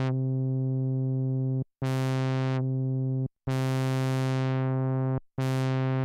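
Korg DW-8000 hybrid synthesizer playing the same note several times. Each note starts bright and its filter closes down to a duller held tone as the filter envelope runs through its attack, decay, breakpoint and slope stages.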